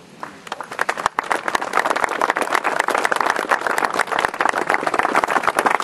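Audience applauding. The clapping starts thin and fills out about a second in, then carries on steadily.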